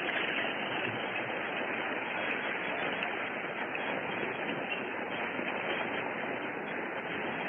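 Convention audience applauding, a steady even clatter that eases off slightly near the end.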